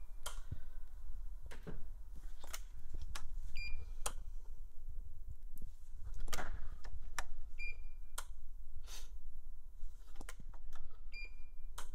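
Multifunction installation tester giving three short high beeps, about every four seconds, as insulation resistance tests at 500 V DC are made between line and earth. Sharp clicks and taps of a metal test probe on the breaker terminals come in between.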